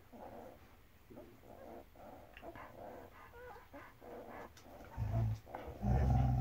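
Week-old German Shepherd puppies giving short, faint squeaks and whimpers while nursing. About five seconds in, a much louder, deep growl from the mother dog begins.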